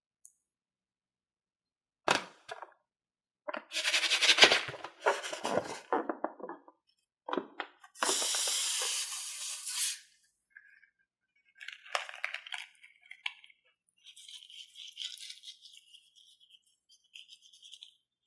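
Balloons and slime being handled: a sharp click, then loud crackly squishing and rubbing, a steady hiss for about two seconds in the middle, and fainter crackling near the end.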